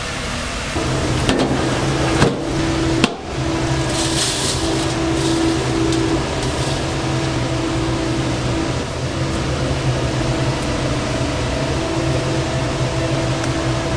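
Steady hum of a running machine motor, starting about a second in, with a couple of short knocks around the three-second mark.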